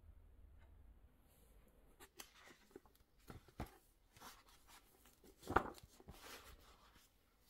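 Quiet handling sounds in a small room: scattered light rustles and clicks, with one louder knock about five and a half seconds in.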